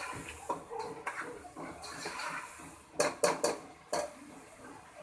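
Spoon scraping and stirring minced meat (keema) in a cooking pot as it is fried, with a quick run of sharp metal clanks on the pot about three seconds in and one more shortly after.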